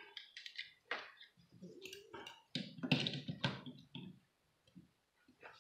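Irregular small clicks and knocks of things being handled: a plastic charging cable and a hard zip case being handled on a table.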